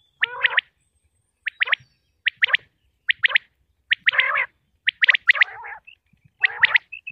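Common quail calling its repeated three-note song, a quick triple 'whit-wit-wit', given about seven times at roughly one phrase a second.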